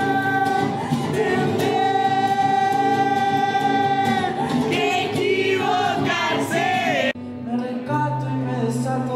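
Singing with musical accompaniment: long held notes in harmony, then wavering sung phrases. About seven seconds in, the sound cuts off abruptly to a different, quieter passage of music.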